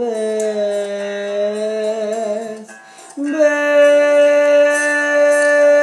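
A man singing a slow Spanish ballad, holding out the end of one phrase. After a short breath just under three seconds in, he holds a long, steady note on 'vez' with a light vibrato.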